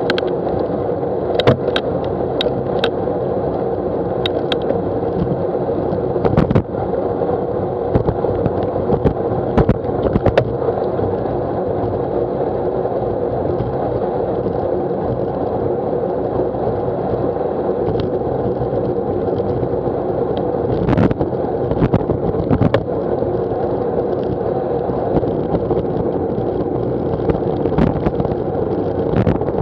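Steady road and wind noise from a bicycle riding at about 14 mph on wet tarmac, with a steady hum and scattered knocks and clicks from bumps in the road.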